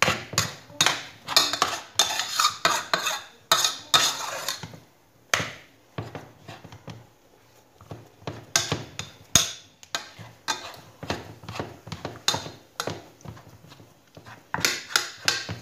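Metal spoon stirring and beating thick choux pastry dough in a metal saucepan, scraping and knocking against the pan about twice a second, quieter for a couple of seconds midway. The dough is being cooked until it comes away from the sides of the pan.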